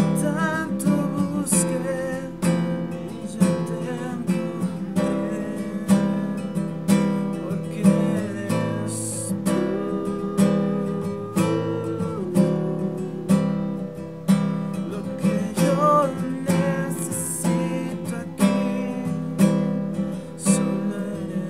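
Acoustic guitar music: chords strummed in a steady rhythm, about one strong strum every second or so, with a sustained melody line over them.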